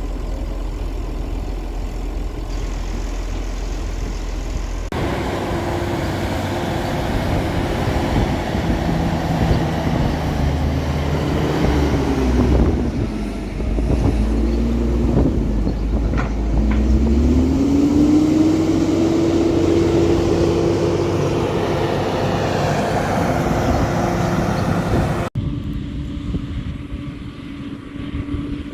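Heavy diesel farm machinery running under load. About midway the engine note sags and dips twice, then climbs back up and holds steady. The sound changes abruptly twice as the footage cuts between machines.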